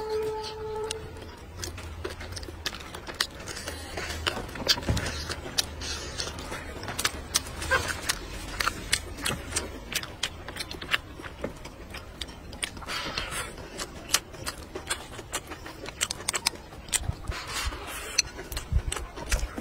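Close-up eating: chewing, with many sharp clicks and taps of wooden chopsticks against a ceramic bowl.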